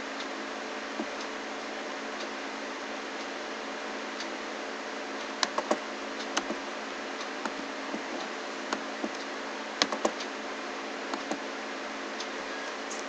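Scattered clicks of a computer mouse and keyboard keys, irregular and sparse, including a quick group of three about five and a half seconds in, over a steady hiss with a faint low hum.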